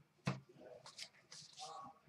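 Faint handling of trading cards being sorted at a glass counter: a sharp tap about a quarter of a second in, soft rustles, and a short hum-like sound near the end.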